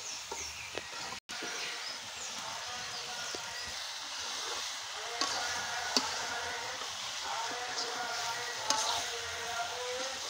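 A beef curry sizzling in a metal wok over a wood fire, stirred with a metal spatula that clicks and scrapes against the pan now and then.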